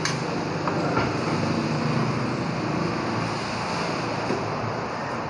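Steady mechanical hum of shop background noise, with two sharp metal clicks about a second apart as the steel steering knuckle is handled on the press bed.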